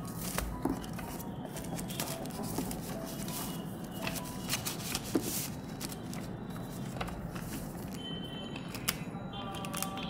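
A sheet of paper being handled, slid and creased flat by hand while it is folded into an envelope, with light paper rustles and several sharp taps and clicks.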